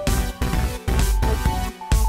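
Electronic background music with a steady beat and a melody of short held synth notes.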